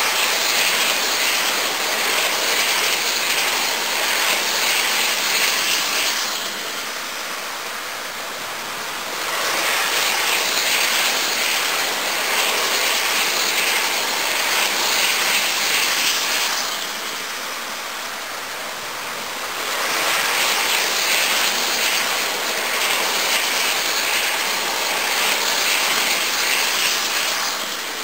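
OO gauge model train, a Hornby Class 60 diesel pulling coaches, running on its track. Its wheels and motor make a hissing rattle that swells three times, about seven seconds each, with a quieter hiss between.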